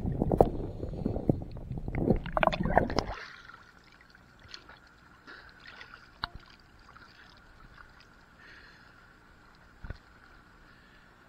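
Underwater rumble and bubbling of a scuba diver's exhaled bubbles and water movement around the camera, loud and crackling, cutting off suddenly about three seconds in as the camera breaks the surface. After that, only faint sound with a few small ticks and a single knock near the end.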